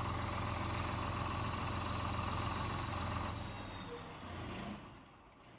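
Cummins diesel generator engine running steadily, then dying away over the last two seconds.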